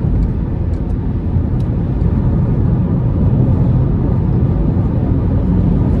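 Road and engine noise inside a moving car's cabin: a steady low rumble of tyres and engine at speed, growing slightly louder about two seconds in.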